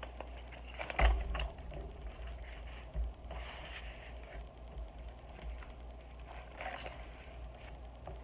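Paper pages, flaps and envelope pockets of a handmade journal being handled and turned: soft rustling and scraping of paper, with a sharp knock and thump about a second in and a smaller one near three seconds.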